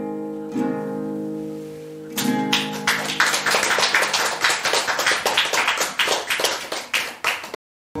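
An acoustic guitar chord rings and fades, then an audience breaks into applause about two seconds in. The clapping cuts off suddenly near the end.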